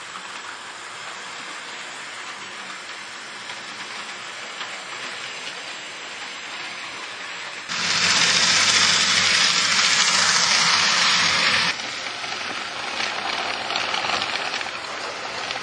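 HO-scale model tram running on its track: a steady rolling hiss of the motor and wheels, with a louder, harsher stretch of about four seconds in the middle that starts and stops abruptly.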